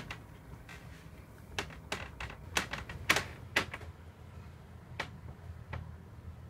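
A series of sharp, irregular clicks and taps, about nine in all, bunched in the first half with two more later, over a low steady hum.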